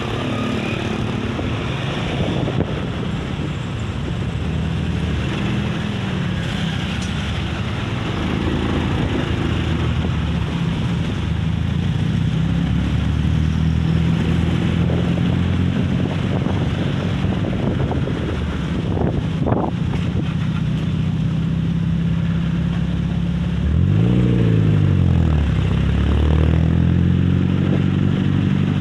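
An engine running steadily, its pitch dipping and rising again about 24 seconds in, with strong wind buffeting the microphone.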